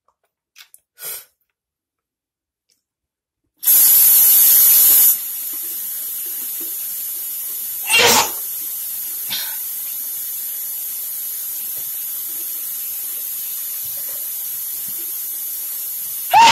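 A person sneezes loudly twice, about eight seconds in and again at the very end, with a smaller burst a second after the first. Under the sneezes is a steady hiss like running water that starts abruptly, with a louder rush, about four seconds in.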